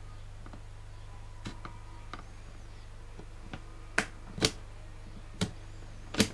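About eight sharp, irregularly spaced clicks, the four loudest in the second half, over a steady low hum.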